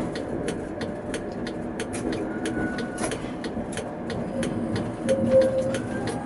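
Tatra K2P tram running slowly through curving track junctions, heard from the driver's cab: a steady rumble with a run of sharp clicks, about three a second. A short squeal rises out of it about five seconds in.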